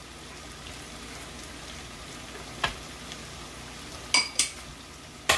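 Onions, sweet peppers, scallion and thyme sizzling steadily as they sauté in a pan. A utensil knocks against the pan a few times, with two ringing clinks close together about four seconds in and a sharp knock near the end.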